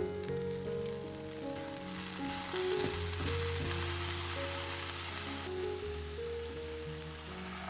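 Food sizzling as it fries in oil in a pan, the sizzle growing denser a couple of seconds in, with background music playing.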